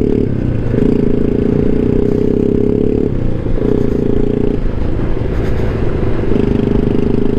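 Honda Ruckus scooter's 49cc four-stroke single-cylinder engine running steadily under throttle on a dirt road, easing off briefly three times (about half a second in, around three seconds, and from about four and a half to six seconds) before picking back up.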